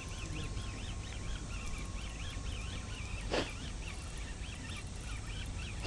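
A small bird chirping over and over in quick up-and-down notes, over a steady low rumble of wind or sea, with two sharp clicks, one about halfway through and one at the end.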